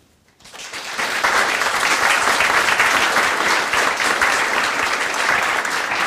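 Audience applauding, starting about half a second in and swelling to full within a second.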